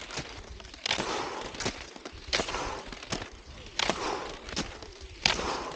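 Cross-country skis swishing over groomed snow in a steady striding rhythm, about one stroke every second and a half. Short sharp clicks fall between the swishes as the poles plant.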